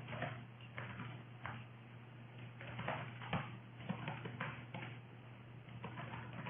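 Computer keyboard keys clicking in irregular runs of typing, over a steady low hum.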